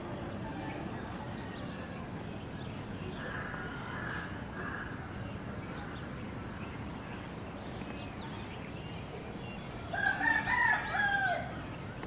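A rooster crows once near the end, a wavering call about a second and a half long and the loudest sound here. Faint bird chirps come and go in the background.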